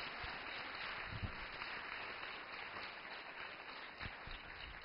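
Faint sound of a congregation praising God together: many voices blended into an even hush, with a few soft knocks.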